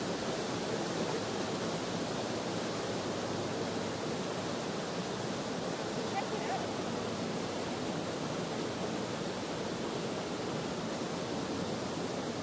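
Steady rush of a mountain stream's water, an even unbroken noise.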